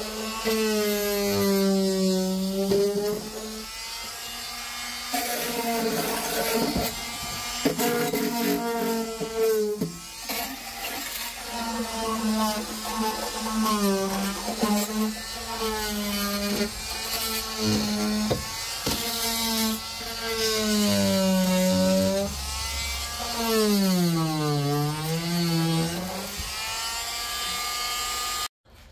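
A 2-amp variable-speed oscillating multi-tool with a flexible stainless scraper blade buzzing as it scrapes old rubber sound-deadening coating off a car's steel floor pan. Its pitch sags and recovers every second or two as the blade is pushed into the coating, and it cuts off suddenly near the end.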